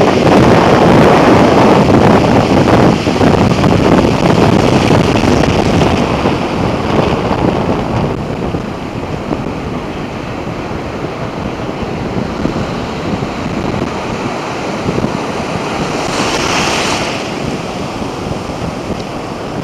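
Ocean surf breaking and whitewater washing in the shallows, with wind buffeting the microphone. Loudest over the first few seconds, then a steadier, quieter wash, with a brief hissing rush of water near the end.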